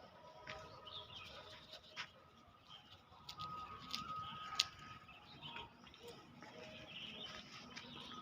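Faint bird calls, with thin held notes and chirps, and scattered sharp clicks, the loudest about four and a half seconds in.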